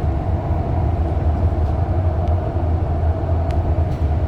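Steady low rumble inside a moving REM light-metro train car: wheels on rail and traction running, with a few faint ticks.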